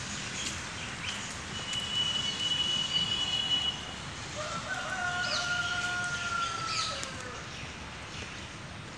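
A rooster crowing once, a single drawn-out call of about two and a half seconds that rises at the start and falls away at the end. It comes about halfway through, after a high, steady whistle-like tone lasting about two seconds, with short high chirps scattered throughout.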